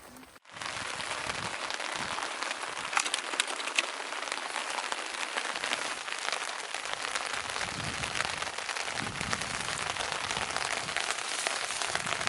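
Steady rain falling, with many small drop impacts ticking through it. It starts suddenly about half a second in.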